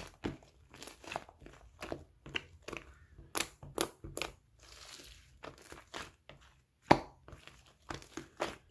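Slime being squeezed and pressed by hand, giving an irregular run of sharp clicks and pops, two or three a second, with one louder pop about seven seconds in.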